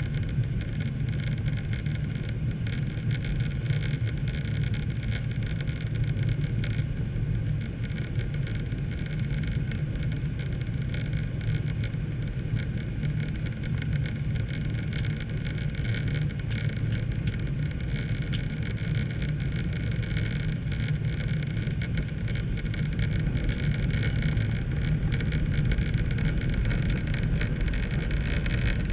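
Steady in-cabin noise of a Boeing 737-800 airliner descending on approach: a low drone of the turbofan engines and airflow with a steady hiss above it, growing a little louder in the last few seconds.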